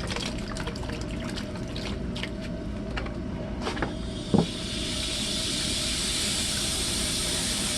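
Air hissing through a hose used to push vinegar into a hot water heater, with a few clicks and knocks at first and a steady hiss setting in about halfway. The hiss comes as the last of the vinegar won't pick up and air blows through.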